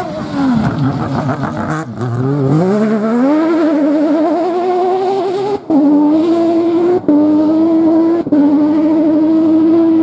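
Rally car engine at full attack on a dirt stage: revs sag as it slides through a muddy corner, then climb hard as it accelerates away. Three quick upshifts each cut the sound for an instant before it pulls on at high revs.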